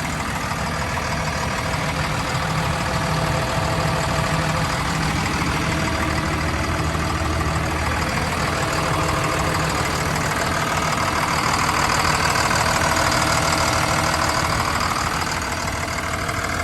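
Caterpillar D6M XL crawler dozer's diesel engine idling steadily.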